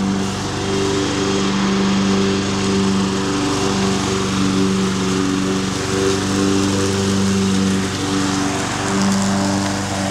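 John Deere X730 lawn tractor's V-twin engine running steadily under load while it drives with the mower deck blades engaged, cutting grass. A constant engine hum sits under a hiss of spinning blades and cut grass.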